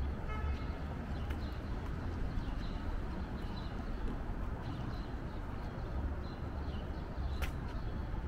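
Outdoor city-street sound: a steady low rumble of traffic with small birds chirping over it, and footsteps on a concrete sidewalk. One sharp click about seven and a half seconds in.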